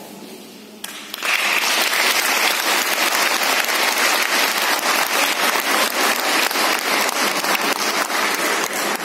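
Audience applauding, starting about a second in after a short quiet and keeping up steadily.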